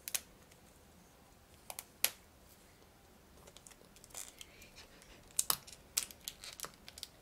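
Small plastic blind capsules being twisted and pried at by hand: scattered sharp plastic clicks and creaks, a few at first, then a quicker run of clicks over the last few seconds.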